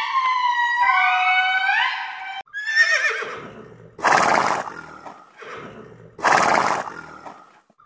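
Horse whinnying and neighing: a wavering whinny about two and a half seconds in, then two loud, harsh neighs about two seconds apart. Before them, held wailing notes slide up and down in pitch and break off suddenly.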